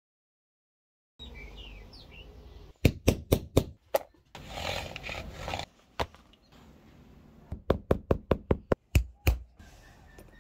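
Sharp taps and knocks on a workbench during leatherwork: a run of about five quick taps, a single one, then about eight more, with a stretch of rubbing and handling noise between. The first second is silent.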